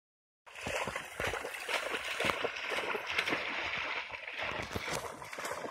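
A Pharaoh Hound splashing as it runs and leaps through shallow lake water: an unbroken, uneven run of splashes and sloshing that begins about half a second in.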